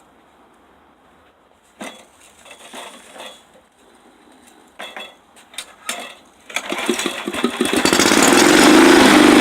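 A few separate knocks and clanks, then a Briggs & Stratton 4.5 hp single-cylinder lawnmower engine, fitted with an exhaust stack, starts about six and a half seconds in and comes up to a loud, steady run.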